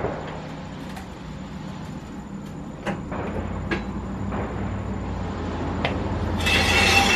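Hydraulic floor jack being worked under a car: scattered clicks and knocks as its long handle is pumped, with a low hum building about halfway through. A loud harsh scraping rasp with some ringing comes near the end.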